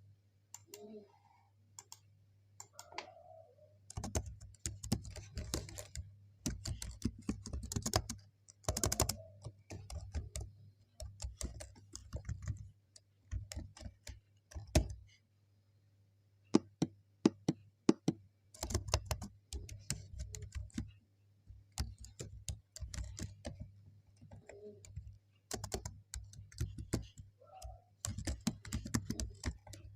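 Typing on a computer keyboard: runs of fast key clicks in bursts with short pauses, starting about four seconds in, over a faint steady low hum.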